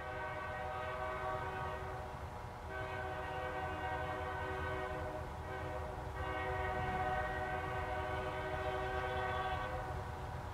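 Air horn of an approaching LSRC EMD diesel locomotive, sounding three long blasts of several notes at once, the last the longest, over a steady low rumble.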